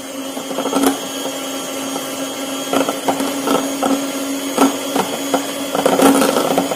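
Electric hand mixer running at a steady speed, its beaters whipping cream in a glass bowl, with irregular sharp clicks as the beaters knock the glass. The cream is at the soft-peak stage and is being whipped further toward stiff peaks.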